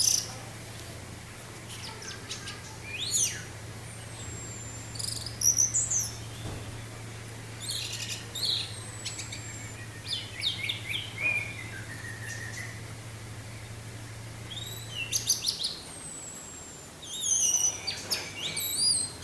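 Orange-headed thrush (anis merah) singing in separate short phrases of quick chirps and whistles, with thin high whistles that glide downward, and brief pauses between phrases.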